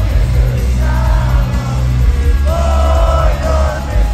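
Live rock band playing through an arena PA, heard from among the crowd: heavy, booming bass and drums under a sung vocal line that comes in short phrases.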